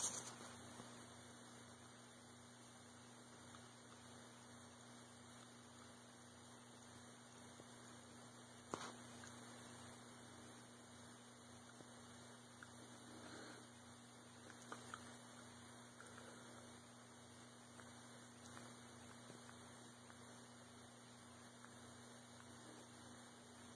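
Near silence: a faint, steady electrical hum, with a single soft click about nine seconds in.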